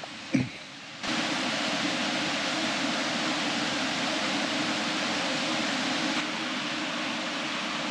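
Two light knocks, then, about a second in, a steady rush of falling water starts abruptly and runs on evenly.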